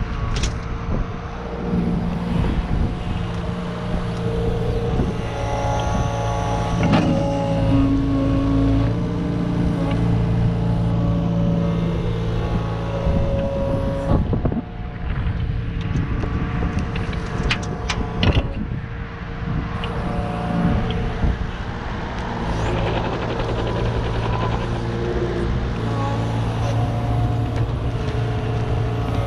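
Kubota KX71 mini excavator at work: its diesel engine runs steadily under changing load, with a hydraulic whine that shifts in pitch as the arm and bucket move. Sharp metallic clanks and knocks come now and then, a few in quick succession near the middle.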